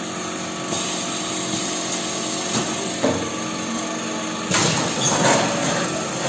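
Packing-line machinery running with a steady hum of several constant tones, overlaid by hissing noise that surges briefly about three seconds in and more strongly for about a second past the middle.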